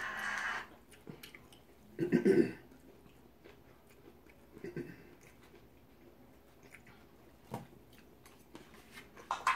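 People eating close to the microphone: chewing and biting, with light clicks of forks on plates. There is a brief louder burst about two seconds in.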